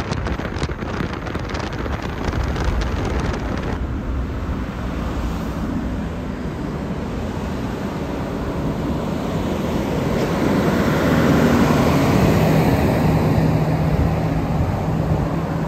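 Heavy tractor-trailer hauling a Shinkansen car past at road speed: diesel engine and tyre noise on the road. It grows louder about ten seconds in as the rig comes by close, with a low engine hum.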